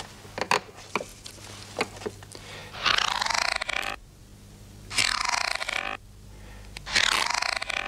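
A man snoring loudly: three long rasping snores about two seconds apart, after a few small clicks near the start.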